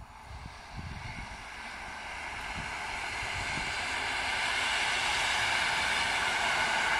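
PAFAWAG EN57 electric multiple unit approaching on the line, its wheel-on-rail noise growing steadily louder, with a few dull low thumps along the way.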